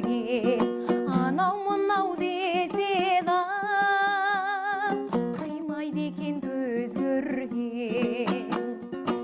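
Traditional Kazakh song: a plucked string instrument played in quick repeated strums, with a voice holding a long, wavering sung line through the middle of the passage.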